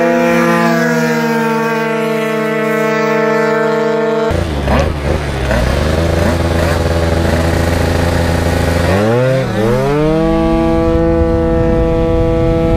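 Tuned two-stroke Piaggio Zip scooter engines at full throttle. First a scooter howls past at a steady high pitch; about four seconds in, the sound cuts to an onboard recording of a scooter engine held at high revs, which dips briefly near the end and climbs back up to a steady pitch.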